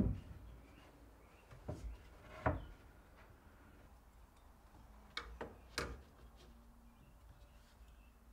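A handful of light knocks and taps from a plywood cabinet door being laid down and a metal rule and pencil being handled on it while it is marked out, with quiet between them.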